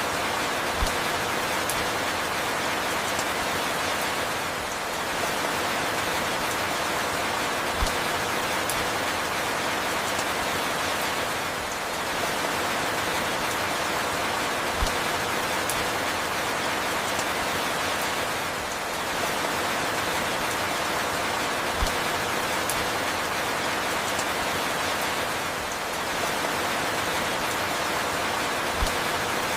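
Steady rainfall, an even hiss of falling rain, with a soft low thump about every seven seconds.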